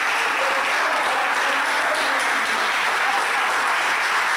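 A room full of people applauding steadily.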